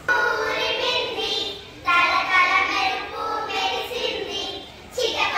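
Young schoolchildren singing, in phrases of one to two seconds with short breaks between them.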